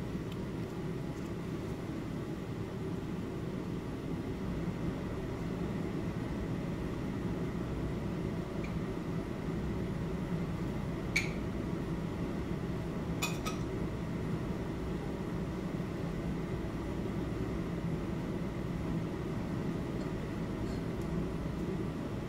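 Steady low hum of room noise, with a single sharp click about halfway through and a short cluster of clicks about two seconds later.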